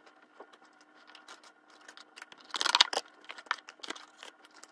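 Small objects being handled and rummaged through in a wooden drawer: scattered light clicks and knocks with rustling, and a louder rustle about two and a half seconds in.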